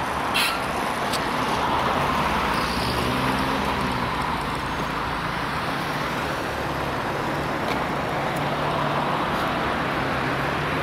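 Road traffic on a busy city avenue: a steady wash of car and engine noise, with a vehicle's engine humming low through the middle. A short knock sounds just after the start.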